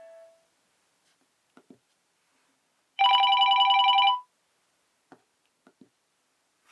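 Nokia 6234 mobile phone playing a ringtone through its loudspeaker: about three seconds in, one burst of trilling, old-style telephone-bell ring lasting just over a second. A few faint clicks come before and after it.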